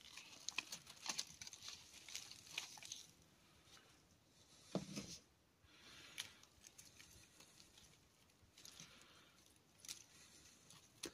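Faint rustling and crackling of dry mulch tipped by hand onto terrarium soil, in quick irregular bursts over the first few seconds and softer after that.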